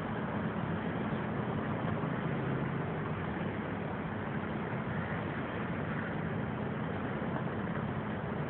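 Steady low engine hum with an even hiss over it, unchanging throughout.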